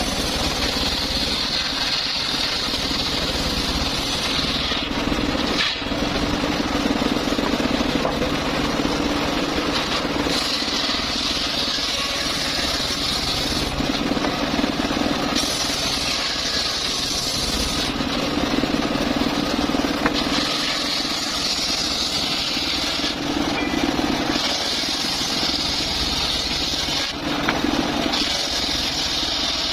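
Engine-driven circular saw cutting mahogany: a steady engine hum underneath, with a high whine that rises in stretches of a few seconds, about six times, as the blade goes into and comes out of the wood.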